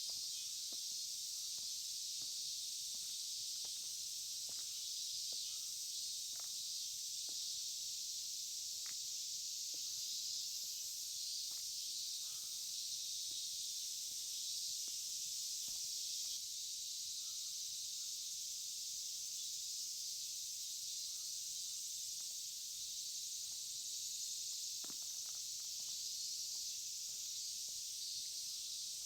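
Steady, unbroken high-pitched chorus of summer insects, without any change in level. Faint footsteps click now and then beneath it.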